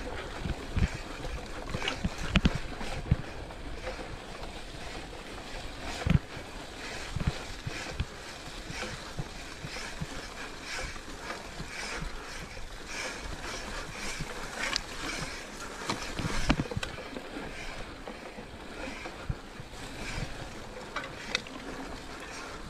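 Mountain bike riding over rough trail: a steady rushing noise with irregular knocks and rattles from the bike taking bumps, the heaviest thumps near the start, about six seconds in and about sixteen seconds in.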